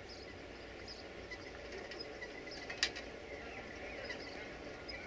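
Birds chirping in short calls over a faint, steady low background, with one sharp click nearly three seconds in.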